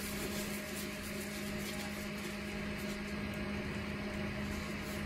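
Steady low hum with a faint even hiss: room tone, with no distinct sound event.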